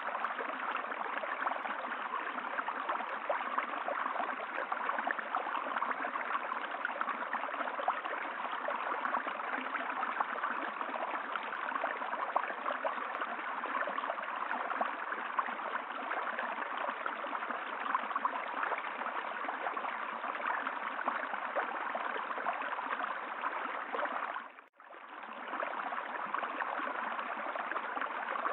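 Steady rush of running water, like a stream. About 25 seconds in it dips almost to silence for a moment, then comes back.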